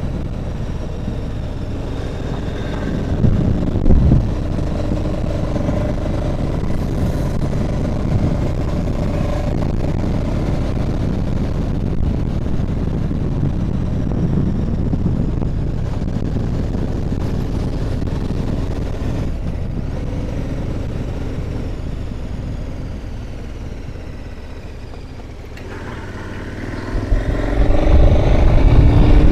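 Motorcycle engine running on the move, its pitch shifting with the throttle. It eases off a little after twenty seconds in, then opens up and grows much louder near the end.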